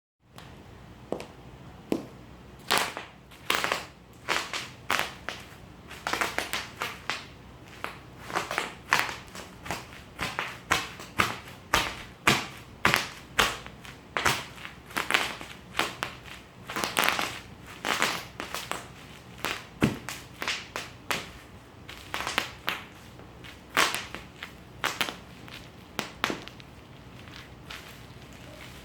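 Bubble wrap being crushed and popped: a long run of sharp, irregular pops and crackles, about one to three a second.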